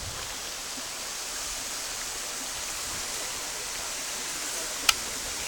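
Steady rushing hiss of a tall waterfall's falling water. A single sharp click cuts in near the end.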